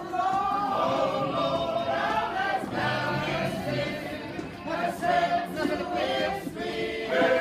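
Mixed choir of men and women singing together as it marches in procession.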